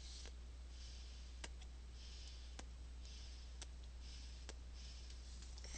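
Faint sharp clicks, about one a second, with soft hissing puffs in between.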